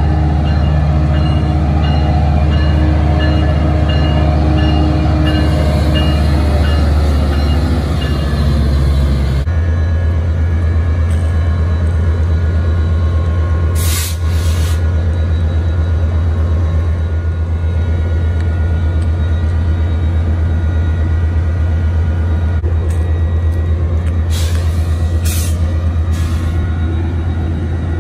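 Metrolink EMD F125 diesel locomotive running loudly as it pulls in and stands at the platform, its engine note shifting about a third of the way in. Short air-brake hisses come around the middle and again near the end.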